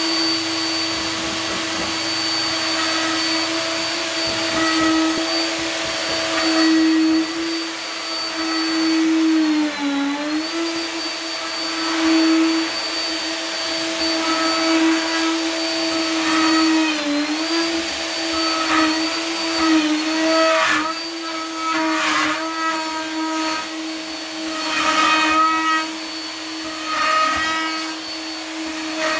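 DeWalt plunge router running at full speed in a Trend lock jig, cutting a lock mortise into a door edge. A steady high whine, its pitch dipping briefly under load about ten and seventeen seconds in, with rougher cutting noise over the last several seconds.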